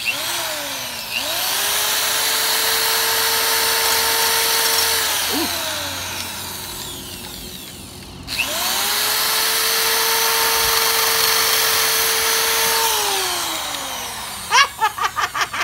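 Red electric drill with a disc mounted on its chuck, run twice: each time it spins up with a rising whine, runs steady for about four seconds, then winds down. A rapid rattle of clicks comes near the end as the disc works loose; the owner blames the drill being set to spin the wrong way.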